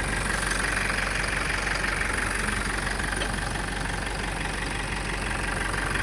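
A machine running steadily with a constant low hum, like an engine idling.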